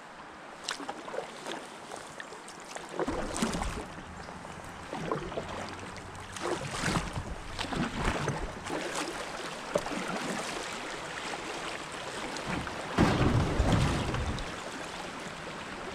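Canoe paddle strokes in shallow river water: irregular swishes, splashes and drips as the canoe moves along. About 13 seconds in comes a louder, deeper rush lasting about a second and a half.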